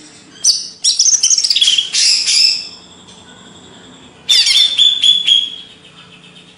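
Green leafbird (cucak ijo) singing: two loud bursts of rapid, high whistled notes with quick sweeping slurs, the first lasting about two seconds and the second, shorter one starting about four seconds in.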